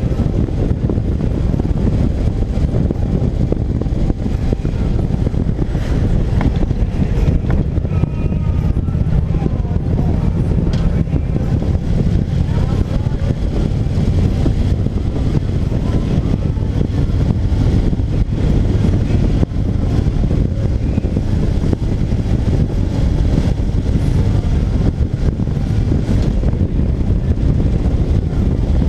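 A motorcycle riding at road speed: its engine runs steadily under a loud, low rush of wind on the microphone.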